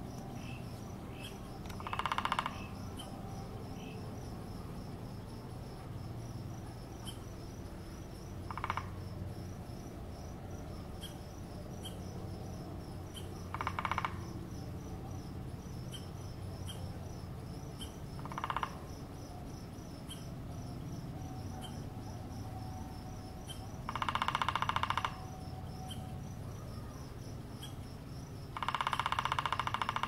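A woodpecker drumming on a dead tree trunk: six rapid rolls of taps, spread several seconds apart. The two near the end are the longest, about a second each, and two in the middle are short. A steady chirring of insects runs underneath.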